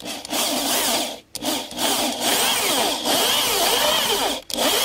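Corded electric drill boring a starter hole into overhead wooden framing, the motor whining under load. It runs in three spells, stopping briefly twice.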